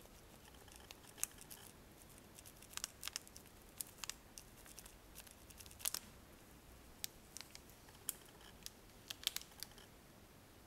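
Small plastic bag crinkling in a gloved hand as it is squeezed and tapped to shake cinnamon powder out: a scatter of irregular short, sharp crackles.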